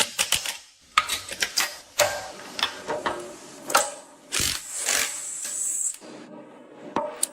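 Hand tools working on metal parts: a string of irregular sharp clicks and knocks, thinning out near the end.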